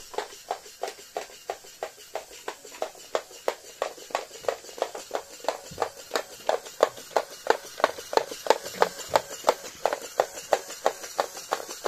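Motorized Lego Technic walker clacking along a wooden floor: its plastic feet and mechanism give an even run of sharp clicks, about three to four a second, louder in the second half.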